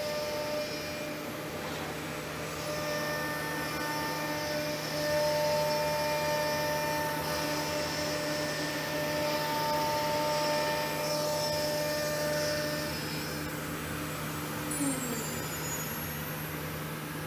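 C.R. Onsrud dual-head CNC router's spindles running with steady whines as the bits cut juice grooves in walnut and red oak cutting boards, over the steady rush of the dust collection. About fifteen seconds in the tones change, with a short falling glide.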